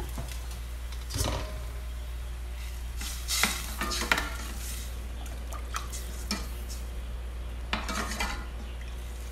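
Metal ladle stirring soup in a stainless steel pot, knocking and clinking against the pot's side several times, over a steady low hum.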